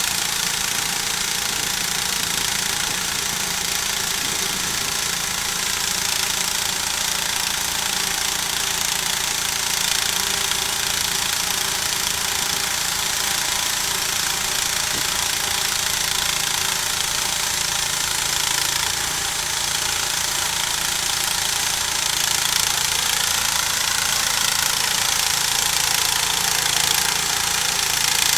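Homemade sawmill running steadily, its engine driving the blade through a log in a long continuous cut.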